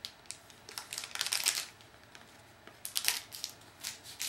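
Cardboard trading cards being flipped through by hand, short papery flicks and slides in two clusters, about a second in and again around three seconds in.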